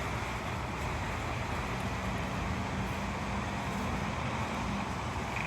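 Vehicle traffic running steadily, with an engine hum that holds for a few seconds in the middle.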